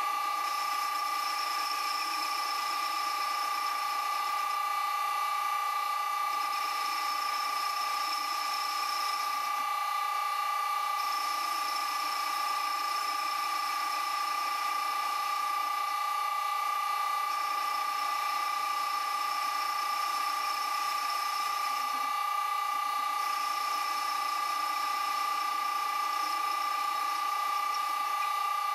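Vintage Karger lathe running at about 510 RPM from a VFD-driven motor, giving a steady high whine. A tool bit turning a point on the spinning workpiece adds a higher hiss that comes and goes in stretches of a few seconds.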